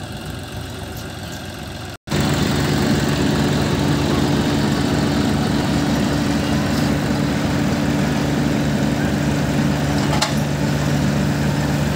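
John Deere tractor's diesel engine running steadily. After a short break about two seconds in it is louder and closer, with a steady hum over an even low firing beat.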